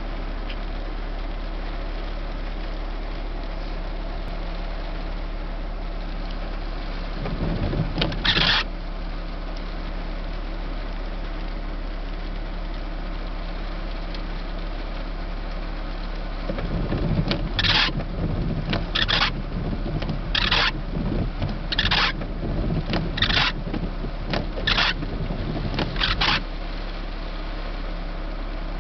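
Car engine idling, heard from inside the cabin as a steady low hum. About eight seconds in, and again from about seventeen to twenty-six seconds in, a rumble joins it with a short swish repeating regularly about every second and a half.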